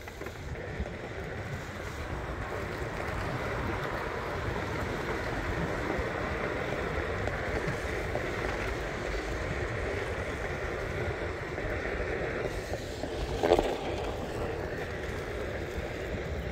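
Skateboard wheels rolling over a concrete sidewalk: a steady rolling rumble, with wind on the microphone. A brief louder pitched sound cuts in once, about three seconds before the end.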